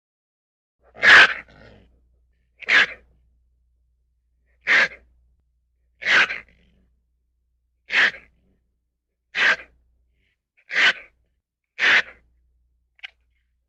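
An animal giving a series of eight short, breathy sneeze-like snorts, about one every one and a half seconds, with a couple of faint clicks near the end.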